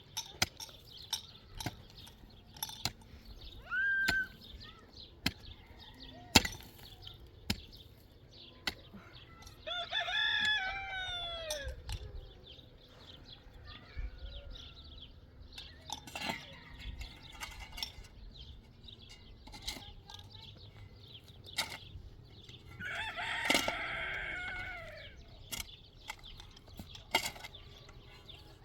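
Rooster crowing twice, the second crow louder, amid scattered sharp clicks and knocks.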